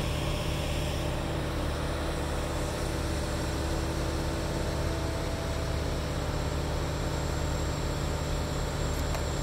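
Engine of the lifting rig holding the boat in its slings, running steadily with a low drone.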